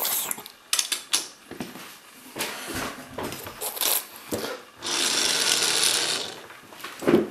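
Light clicks and rattles of small plastic toy pieces being handled on a wooden table, with a stretch of rustling about five seconds in.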